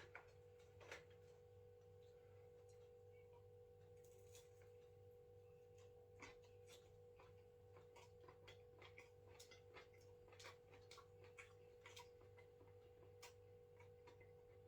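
Near silence: faint clicks and smacks of a person eating a chicken burger, scattered irregularly over a steady faint electrical hum.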